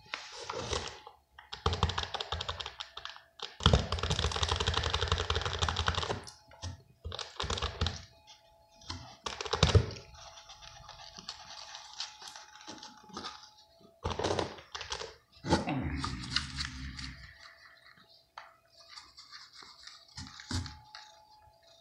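Irregular rustling and scratching against a cardboard box and fur as a hand strokes and plays with a cat lying in it. It comes in uneven bursts with short pauses. A faint steady hum runs underneath.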